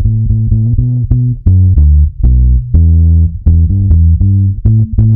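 Reggae music, instrumental with no singing: a heavy bass line played as a run of short, separate notes over keyboard.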